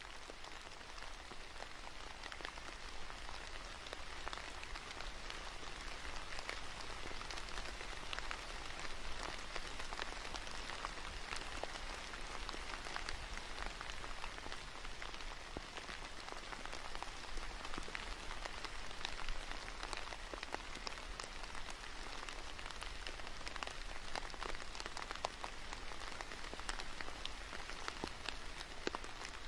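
Steady rain falling on leafy trees: an even hiss studded with many small, sharp drop hits.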